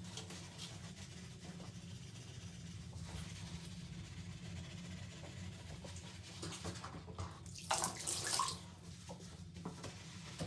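Wet scrubbing and wiping on a soapy chrome shower valve trim plate, with water splashing. A louder rush of water comes about eight seconds in, over a steady low hum.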